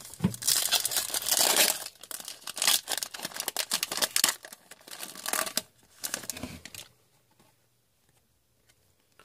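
Trading-card pack wrapper crinkling and tearing with cards being handled, a quick, scratchy rustle that stops about seven seconds in.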